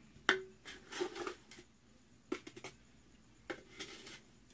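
A plastic measuring cup clattering against a stainless metal pot as sugar is scooped and poured in, in several short bursts of clicks and rustling with a brief metallic ring.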